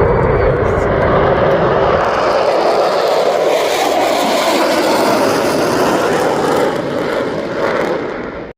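Loud, steady rushing roar of Blue Angels jet aircraft passing at an airshow. The deep rumble thins out after a couple of seconds as the sound turns brighter and hissier, and it cuts off suddenly at the end.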